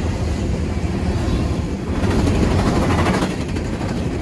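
Freight train rolling past, a steady low rumble with wheel and car noise that swells about two seconds in with a rapid clatter.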